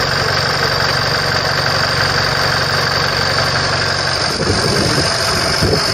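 An engine idling steadily with a low, even hum that shifts a little about four seconds in.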